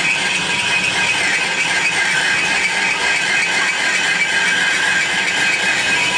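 Metal lathe turning a crankshaft, its gears and motor running with a steady mechanical whirr.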